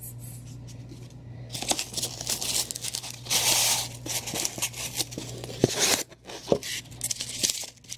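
Packaging being torn and crinkled by hand as a gift box is unpacked: irregular rustling tears with sharp crackles and clicks, loudest a little after three seconds in.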